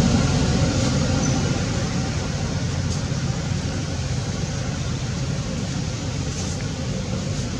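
Steady low rumbling background noise with no distinct events, easing slightly in loudness.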